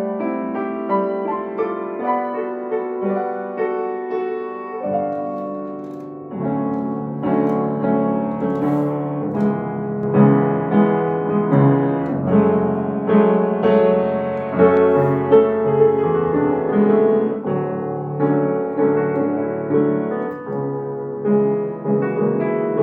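Mason & Hamlin acoustic piano played solo: a classical-style piece, gentler for the first few seconds, then fuller chords with deeper bass notes from about six seconds in.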